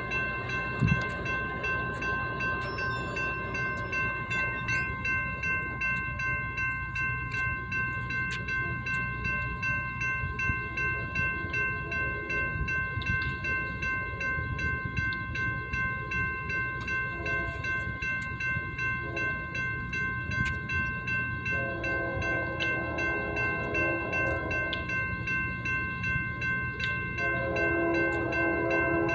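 Railroad grade crossing bell ringing steadily with the warning signals active. About twenty-one seconds in, the approaching Union Pacific locomotive sounds a multi-note air horn for a few seconds, then again near the end as the train nears the crossing.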